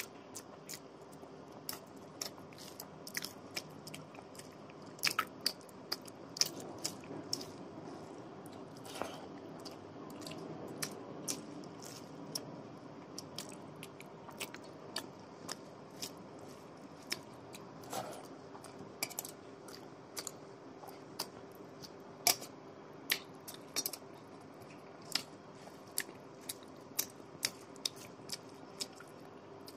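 Close-miked eating sounds: chewing and mouth smacks of rice and egg curry eaten by hand, with fingers squishing and mixing rice on a steel plate. Many short sharp clicks come at irregular intervals throughout, over a faint steady hum.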